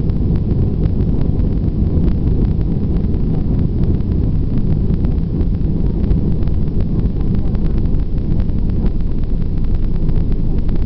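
Airbus A320 jet engines and airframe heard from inside the cabin during the takeoff roll: a loud, steady deep rumble, with quick rattling clicks running through it.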